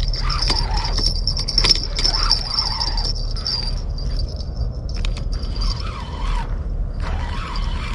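Spinning reel being cranked to bring in a hooked fish, with scattered clicks and rubbing as hands work the rod and reel close to the microphone over a steady low rumble. A steady high thin whine runs through the first half and then stops.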